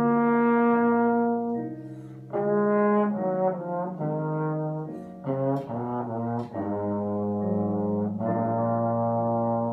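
Tenor slide trombone playing a solo melody: a long held note, then a quicker passage of shorter notes through the middle, then longer held notes again, with piano accompaniment underneath.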